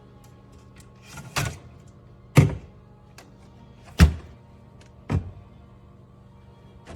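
Four hard clunks about a second apart, with a few light clicks between them: aluminium drink cans being handled and knocked against a metal fridge can-dispenser rack.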